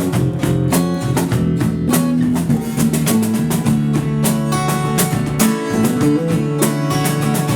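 Rock band playing an instrumental passage: guitars with strummed chords over bass and a steady drum-kit beat, no singing.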